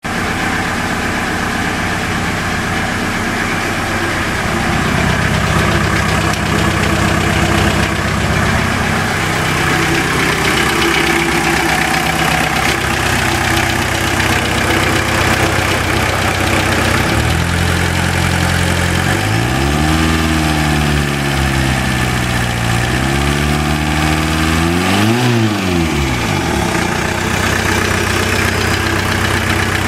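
Volkswagen Jetta diesel engine idling with a steady ticking knock, blipped twice about two-thirds of the way through, rising and falling in pitch before settling back to idle. The ticking persists even with a new rod bearing and new lifters fitted.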